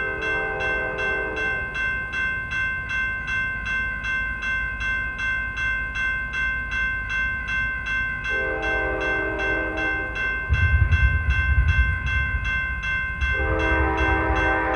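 A grade-crossing bell rings steadily and evenly throughout. Over it, the Nathan K5LA five-chime horn on the Amtrak cab car sounds three blasts: near the start, about two-thirds in, and a last one near the end that is still going at the close. A low rumble from the approaching train grows loud from about two-thirds in.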